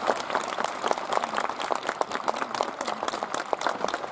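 Many hands clapping in scattered applause from a group of players and onlookers, the follow-on to an ippon-jime ceremonial closing clap. A sharp clap right at the start is the loudest moment.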